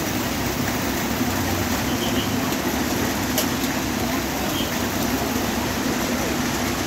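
Steady rain together with the low hum of idling bus diesel engines, a constant even wash of noise.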